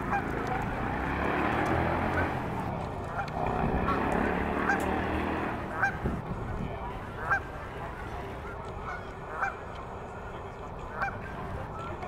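Geese honking: a dozen or so short, separate honks at an uneven pace. For the first half they sit over a low rumbling noise that fades out about halfway through.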